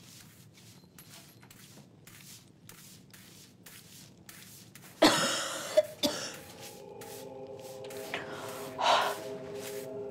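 A woman's sharp, exasperated breath, a loud huff or gasp about halfway through, followed by a second breathy huff near the end. Faint regular taps come before it, and soft sustained music comes in during the second half.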